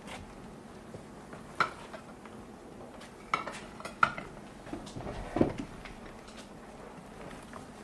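Crockery and cutlery clinking as plates are stacked and set down on a table: sharp clinks about one and a half, three and a half and four seconds in, then a duller knock about five and a half seconds in.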